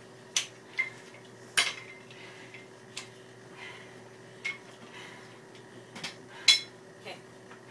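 Loaded barbell and its iron plates being handled: irregular sharp metallic clinks and clanks, about eight in all, the loudest about six and a half seconds in.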